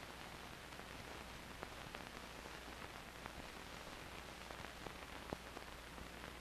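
Faint steady hiss of an old 16mm optical film soundtrack, dotted with scattered crackles and pops, over a low steady hum.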